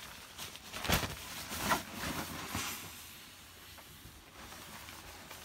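Wind noise on the microphone: a rushing hiss with several short gusts, the strongest about a second in, easing off after the middle.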